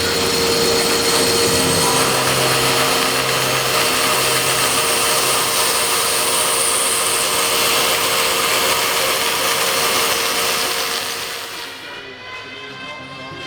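A power tool running with a loud, steady, noisy sound and a few held tones; it fades out about twelve seconds in, and music takes over near the end.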